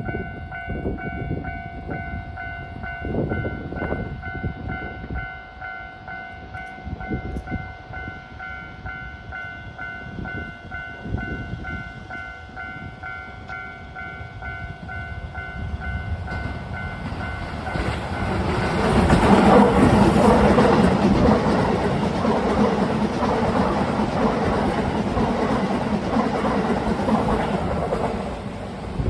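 Level-crossing warning bell ringing in a steady repeating ding. About seventeen seconds in, a Keisei 3000-series electric train runs through the crossing, and its wheels and running noise swell loud and carry on to the end.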